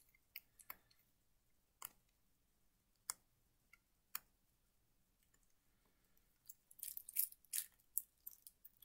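Shrink wrap on a stack of game cards being picked at and peeled: faint scattered clicks, then a quick run of crinkling near the end.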